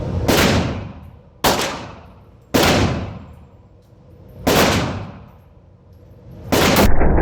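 Five gunshots at uneven spacing, one to two seconds apart, each ringing out in a long echoing decay. The last is cut short just before the end by a loud steady noise.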